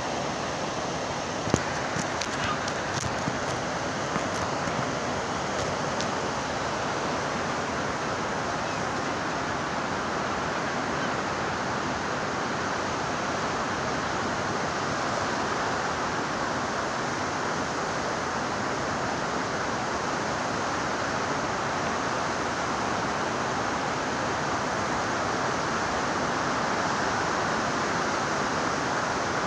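Ocean surf breaking on a beach: a steady, even wash of wave noise. A few sharp clicks come in the first few seconds, the loudest about a second and a half in.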